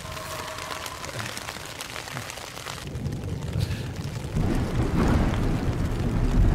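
Rain pattering, with many fine drop ticks, then a deep rumble that builds about four seconds in and stays loud.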